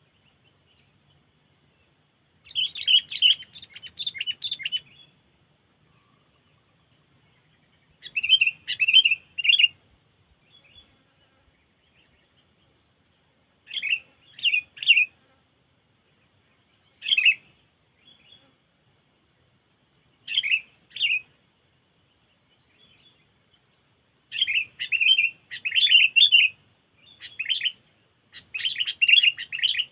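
A sooty-headed bulbul (kutilang) decoy bird calling: short bursts of quick, repeated chirps every few seconds, with longer, denser runs near the end.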